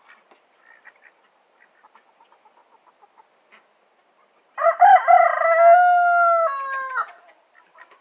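A rooster crowing once: a loud call lasting about two and a half seconds, starting about halfway through and ending on a falling note. Before it, faint soft clucking from the flock.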